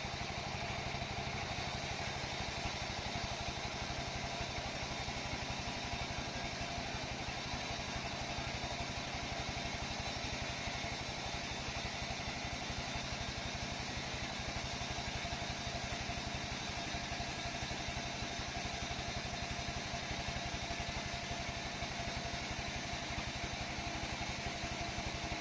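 Sawmill saw machine running steadily: a motor drone with a fast, even pulse and a steady hum that does not change.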